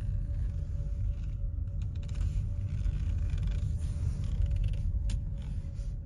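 Low rumble of a car driving slowly, heard from inside the cabin, with a faint steady hum and a few sharp clicks near the end.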